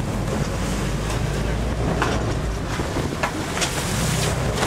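Game-fishing boat's engine running with a steady low rumble, under wind buffeting the microphone and water rushing and splashing around the boat.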